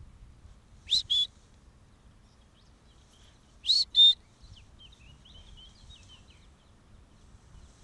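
Two loud two-note whistles about three seconds apart, each a rising note then a lower one, typical of a whistle calling a dog back. A bird twitters faintly just after the second whistle.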